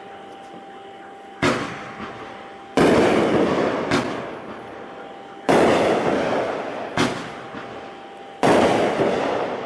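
A consumer fireworks cake, the 10-shot Purple Lightning repeater, firing three shots. Each is a sharp launch pop followed about a second and a half later by a louder break in the air that trails off over a couple of seconds.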